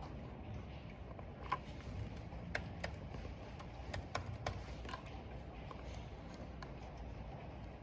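Computer keyboard being typed on in scattered, irregular keystrokes, over a steady low rush of wind and rain.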